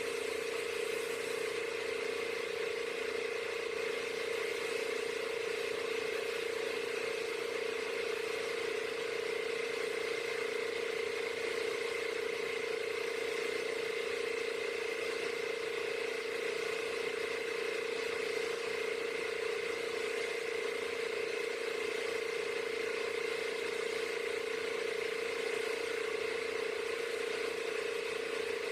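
Motor-driven high-pressure sprayer running steadily, a constant mechanical whir with a fixed mid-pitched tone and no change in speed.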